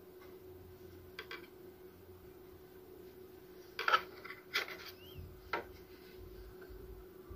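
Clicks and knocks of a motherboard's M.2 heatsink cover being handled and set over an M.2 SSD, the loudest knocks coming together about four seconds in.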